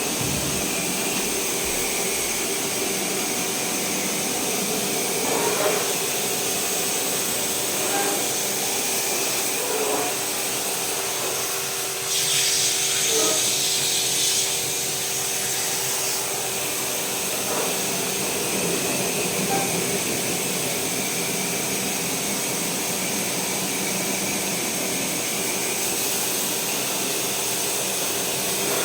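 A steady machine hum with a constant hiss; about twelve seconds in, a brighter, sharper hiss rises for two seconds or so, then falls back.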